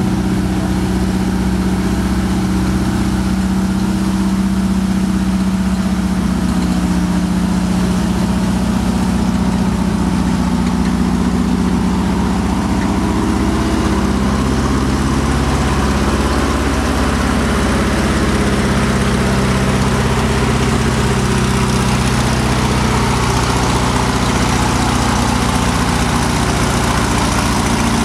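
Ford GAA 18-litre V8 of an M7B1 Priest self-propelled howitzer running at low speed as the tracked vehicle drives slowly past, a steady low engine note.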